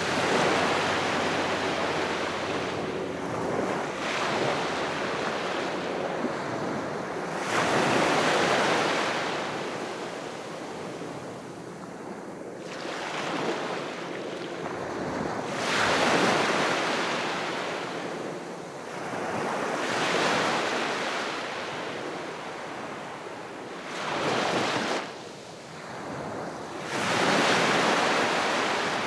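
Calm sea waves breaking on the shore and washing back, rising and falling in surges every several seconds.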